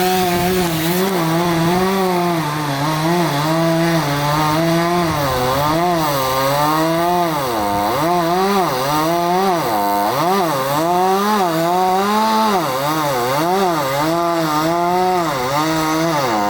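Chainsaw engine running while cutting, its speed dipping and rising again and again as the chain bites into the wood and frees up.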